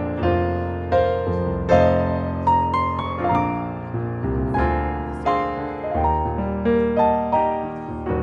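Piano played without singing: chords with a melody line above, each struck note ringing and fading before the next.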